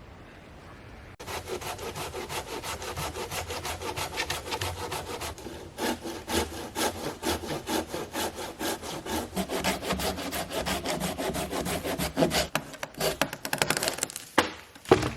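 Hand saw cutting through dead standing wood in quick back-and-forth strokes, starting about a second in and getting faster near the end, with a loud knock just before it ends.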